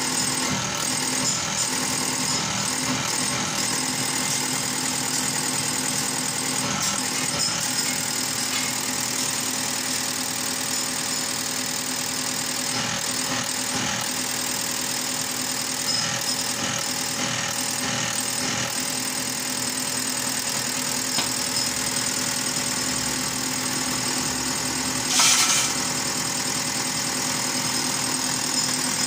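Rotary diesel injection pump from a JAC truck running on a fuel injection pump test bench, driven steadily while its test injectors spray into the measuring cylinders: a constant mechanical running noise with a steady hum. About 25 seconds in there is one brief, louder hiss.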